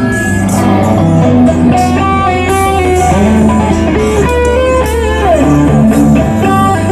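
Live band playing at a sound check: an electric guitar picks a melody over a steady bass line and drums, loud throughout.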